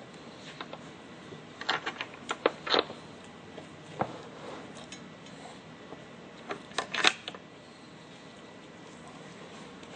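Short clicks and clatters of small hard objects being handled, in two quick clusters: one about two seconds in and another about seven seconds in, with a single click between them.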